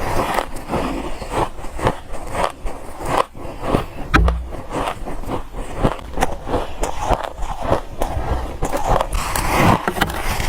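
Soft, dry freezer frost being crunched, a continuous run of irregular crisp crunches. There is a dull low thump about four seconds in.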